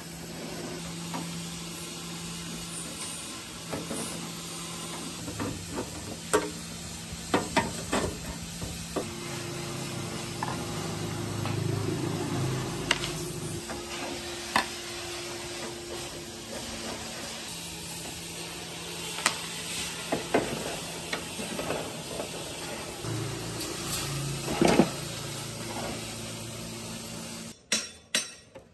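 Scattered light metallic clicks and knocks of small parts being handled during disassembly, over a steady low hum and hiss.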